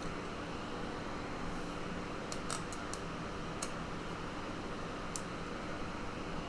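A few light, high clicks and ticks of a small screwdriver and laptop screws: a quick cluster about two and a half seconds in and one more about five seconds in. They sit over a steady fan-like room hum.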